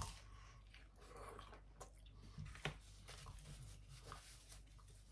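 Faint eating sounds of someone chewing a bite of pizza, with small scattered mouth and handling clicks and one sharper click a little past halfway.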